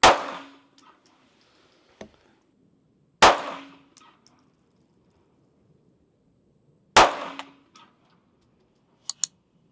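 Three 9mm pistol shots from a Canik METE MC9L, about three to four seconds apart, each followed by a short ringing echo. There is a small click between the first two shots and two light, sharp ticks near the end.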